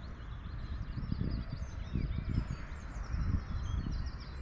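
Several wild birds singing, many short chirps and warbles over one another, with wind buffeting the microphone in irregular low gusts.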